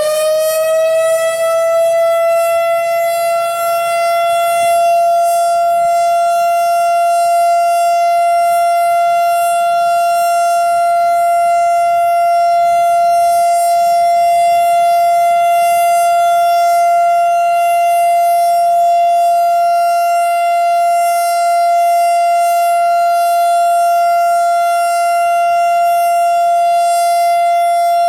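Federal Signal Thunderbolt 1000 "Jail Bar" outdoor warning siren settling at full pitch and holding the steady Alert tone: one loud, unwavering tone with many overtones. Its rotator is not used, so the sound does not swell and fade as it would if it swept around.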